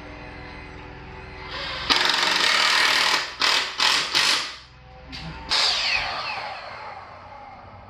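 Handheld power tool run in bursts: one long run, then three quick trigger pulls, then a last run that falls in pitch as the motor winds down.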